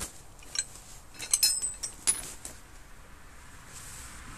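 Metal tools clinking against each other in a bag as it is rummaged through: scattered light clicks, a cluster of ringing clinks about a second and a half in and another just after two seconds.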